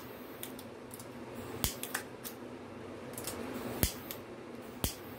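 Small butane torch lighter clicking as its trigger is pressed, four sharp clicks spread over several seconds, while it is used to pop bubbles in wet epoxy.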